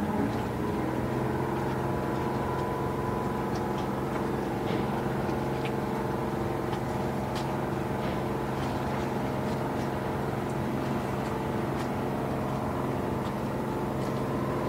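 Engine of a small wooden motorboat running steadily as the boat motors past, a constant drone with several steady tones and faint scattered ticks.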